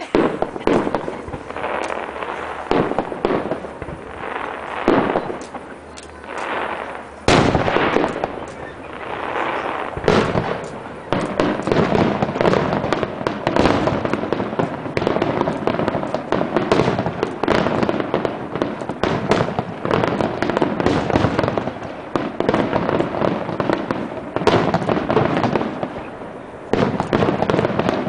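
Aerial fireworks going off in quick succession: dense crackling and popping with louder bangs. The bursts thicken into continuous crackling from about seven seconds in.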